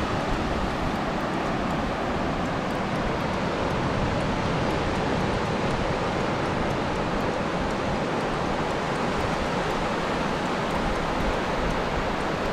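Small waves breaking and washing up a flat sandy beach, a steady rushing noise.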